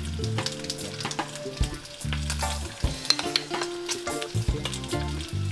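Pancake batter sizzling in a hot frying pan, with a metal spoon clinking and scraping against a glass mixing bowl as batter is scooped out. Background music with a bass line plays underneath.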